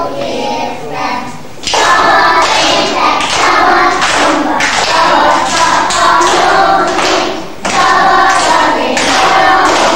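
A group of young children singing together, with claps and thuds from a clapping circle game. The singing breaks off briefly about a second in and again near the end before picking up.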